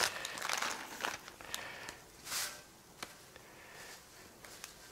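Plastic spaghetti packet crinkling and rustling as the dry pasta is pulled out and handled, loudest in the first couple of seconds, with a few light clicks in between.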